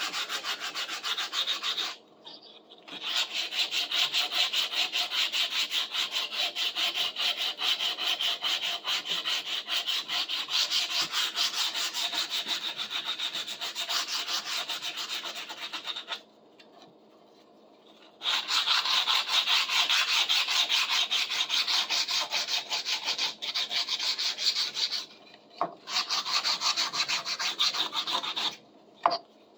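Sanding the wooden handle of a folding pruning saw: fast, scratchy rubbing strokes that pause briefly about two seconds in, stop for a couple of seconds around the middle, then resume.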